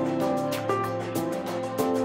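Instrumental background music: held notes changing every half second or so over a light, steady ticking beat.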